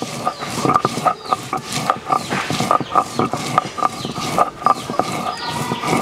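Stone roller grinding onion on a flat stone slab (shil-nora): rhythmic grating and crunching strokes, a few a second, as the roller is worked back and forth. A few short, falling high chirps come in near the end.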